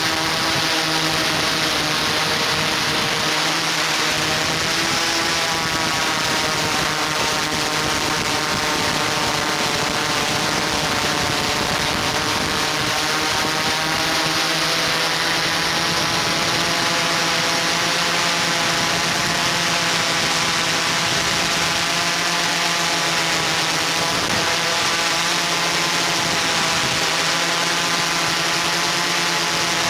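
Multirotor camera drone's motors and propellers running steadily: a constant hum of several close pitches that waver slightly over an even hiss.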